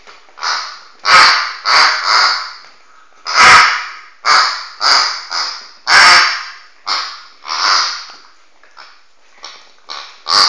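Pink pig squeaky toy giving a run of rough, honking squeaks, about a dozen at uneven intervals, as a dog chews and squeezes it in its mouth. A few squeaks start with a sharp knock.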